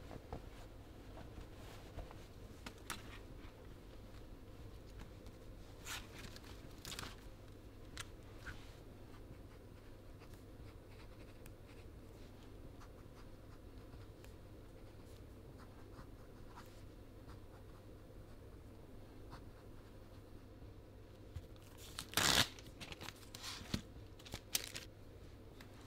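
A sheet of paper ripped from a spiral-bound notepad near the end, the loudest sound, followed by a few smaller paper rustles. Before it, only a steady low room hum with a few soft taps of hands and pen on paper.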